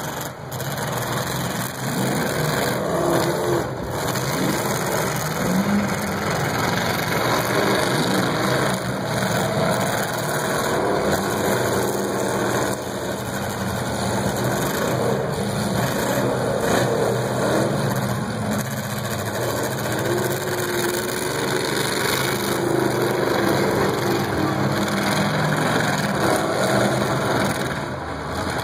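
Several demolition derby cars' engines running together, revving up and down as the cars push and turn in the dirt.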